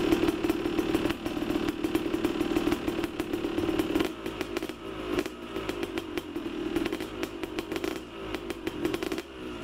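A motorcycle engine running steadily with a rapid, crackling buzz. It eases off briefly about four seconds in and again near the end.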